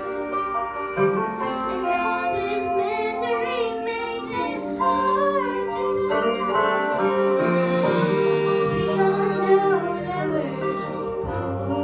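Two girls singing a duet into handheld microphones over a backing track, with long held notes.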